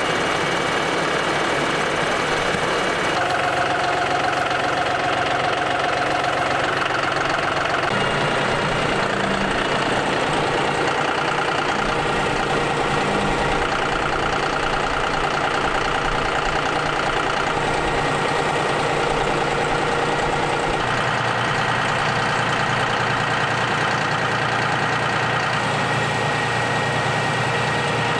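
A John Deere utility tractor's diesel engine running steadily while its front loader pulls T-posts out by a chain. Its note changes abruptly in steps a few times.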